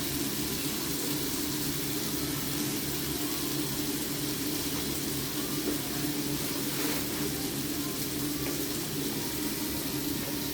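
Chicken breast frying in a little olive oil in a frying pan: a steady sizzle, with a steady low hum underneath.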